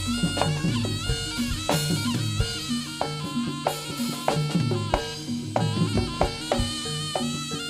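Live jaranan music: steady, rhythmic drumming with a reedy wind melody bending in pitch over it.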